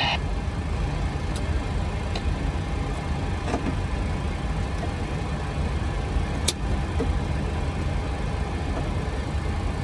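Steady low rumble of the Boeing 737 Business Jet's two engines idling after both have started, heard inside the cockpit, with a few faint clicks.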